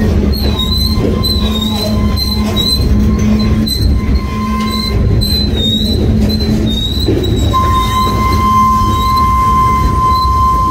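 Loaded freight gondola cars rolling past, their steel wheels squealing against the rail: a wavering high whine throughout and a steadier, lower squeal that grows louder about two-thirds of the way through, over the low rumble and clicks of the wheels.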